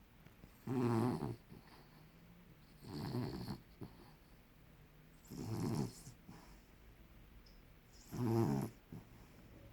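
A dog snoring: four pitched snores, each about half a second long, coming about every two and a half seconds.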